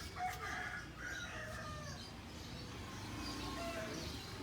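A rooster crowing, with other birds calling behind it.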